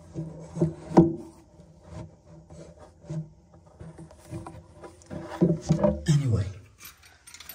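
Handling noise under a sink cabinet: scattered knocks and rubbing as a basin wrench and the phone are moved about against the cabinet. The loudest knock comes about a second in, and there is a busier run of knocks and rubs around five to six seconds in, ending in a short sound that falls in pitch.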